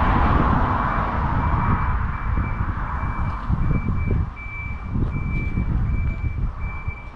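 A vehicle's reversing alarm beeping at one steady pitch, about twice a second, over wind buffeting the microphone.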